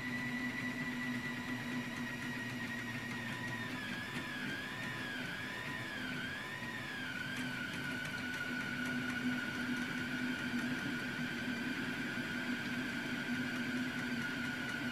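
Anycubic Kossel delta 3D printer printing. Its stepper motors whine in a high tone that warbles up and down for a few seconds midway, then holds steady at a slightly lower pitch, over the steady hum of its cooling fan.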